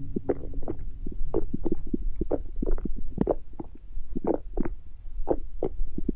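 A hungry stomach growling: an irregular run of short gurgles, a few each second, over a constant low rumble.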